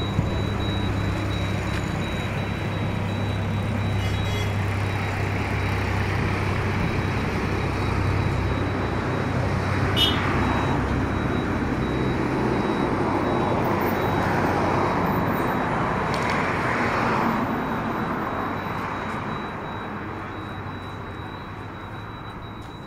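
Steady low hum of a running vehicle engine mixed with road traffic noise, fading away over the last few seconds.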